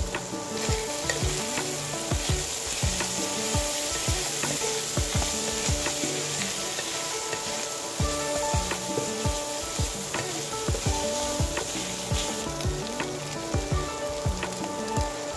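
Sliced pork and red onion sizzling in an oiled nonstick wok, stirred with a wooden spatula that knocks and scrapes against the pan. Soft background music plays underneath.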